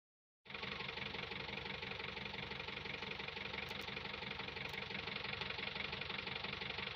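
Hindustan Ambassador Classic's 1500 cc four-cylinder BMC diesel engine running steadily at idle, cutting in abruptly about half a second in.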